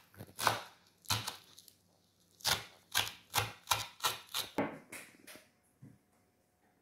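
Kitchen knife chopping fresh greens on a wooden cutting board: a few single strokes, then a quick run of about three strokes a second, which thins out near the end.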